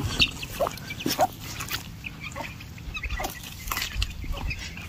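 Domestic chickens clucking now and then in short, scattered calls, with low thumps of movement underneath.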